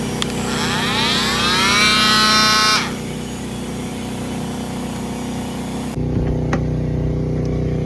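Steady mechanical hum with a motor whine that rises in pitch for about two seconds, levels off, then stops abruptly; the hum shifts to a different, deeper drone about six seconds in.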